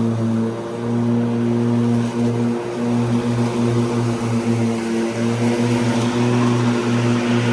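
Ryobi 48V 38-inch battery riding lawn mower mowing grass, its electric motors giving a steady, wavering hum. A brighter hiss rises near the end.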